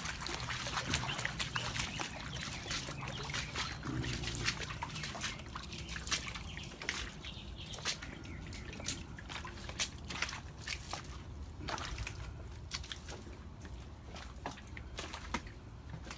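Water trickling and dripping, with many irregular small clicks and knocks scattered throughout.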